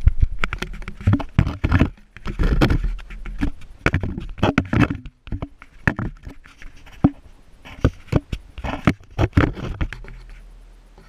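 Handling noise from a hand-held action camera: irregular knocks, taps and scrapes as it is gripped and moved, with some low rumble, dying away near the end.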